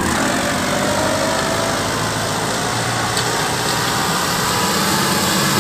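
Turbocharged diesel engine of a Powertrac Euro 60 tractor running steadily under load while it pulls a disc harrow through the soil.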